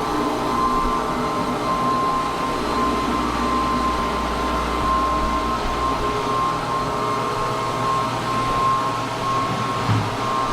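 Rotary floor buffer running steadily with a constant whine, buffing stain into a sanded fir floor.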